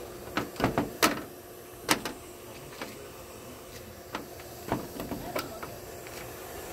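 Clicks and knocks of a screen door's latch and frame as the door is unlatched and pushed open: a cluster of sharp clicks about half a second to a second in, another about two seconds in, and lighter knocks a few seconds later, over a faint steady hum.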